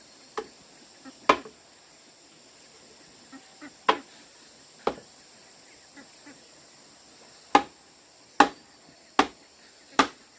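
A series of about eight sharp knocks, scattered at first and then four in a steady rhythm a little under a second apart near the end.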